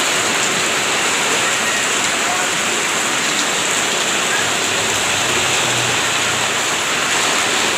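Heavy rain pouring down in a steady, loud, even hiss.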